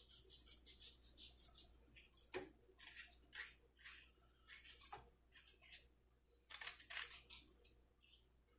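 Faint knife work on an aloe vera leaf: a run of short scraping and cutting strokes as the gel is cut out, with two sharper knocks about two and a half and five seconds in.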